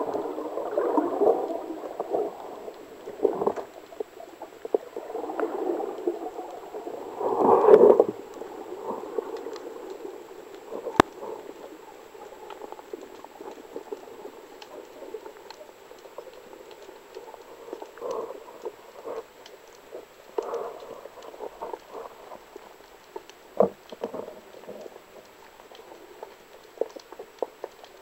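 Underwater sound through a camera's waterproof housing as a spearfisher dives: muffled water rushing and bubbling, loudest in the first eight seconds with a strong surge near eight seconds, then fading to a quieter wash with scattered small clicks.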